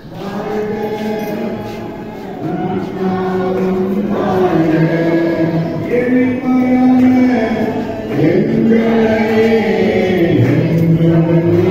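A group of voices singing a Christian song in held notes that move in steps.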